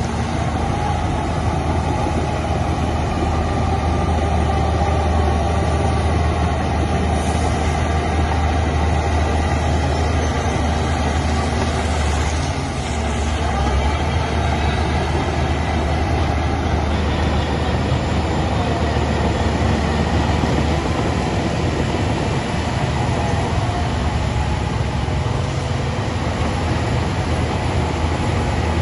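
Heavy diesel engine of earthmoving machinery running steadily with a deep rumble.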